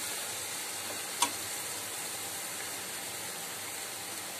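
Onion and tomato puree masala sizzling steadily in oil in a kadhai. One sharp tap about a second in.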